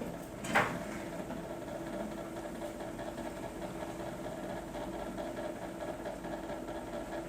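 A steady low mechanical hum, with one short sharp sound about half a second in.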